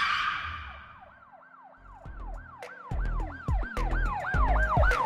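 A fading whoosh, then a siren wailing in quick rising-and-falling sweeps, about three a second and growing louder, over heavy bass thuds of a beat.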